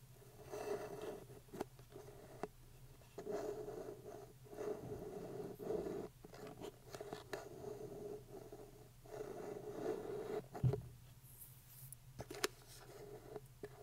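Long fingernails scratching and tapping on a paper coffee cup and its plastic lid, in bouts of scratching a second or two long with a few sharp taps between them.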